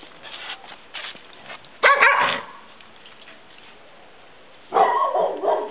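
A dog barking in two short bursts: one about two seconds in and a longer, broken run near the end.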